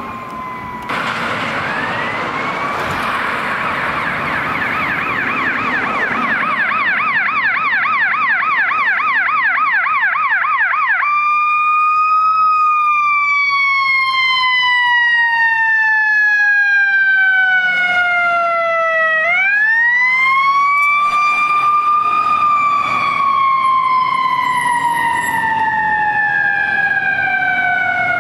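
Electronic siren on a Los Angeles County fire apparatus responding code 3. About a second in it rises into a fast yelp for roughly eight seconds, then switches to a slow wail that falls and rises again.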